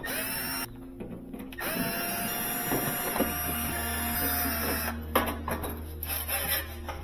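Milwaukee cordless drill driver backing out sheet-metal screws: a brief motor whine, then a longer steady-pitched run of about three seconds. Clicks and light rattles follow near the end as the metal panel comes loose.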